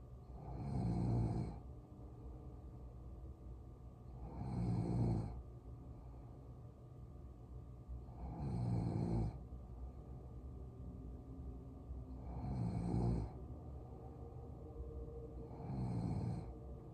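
A sleeping woman snoring: five snores about four seconds apart, each lasting about a second.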